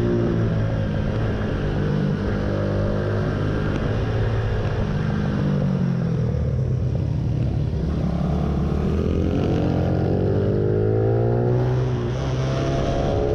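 Sport motorcycle engine heard onboard at track speed, its revs dropping off about four seconds in and then climbing steadily in a long rising pull from about eight seconds, as the bike brakes into and accelerates out of corners.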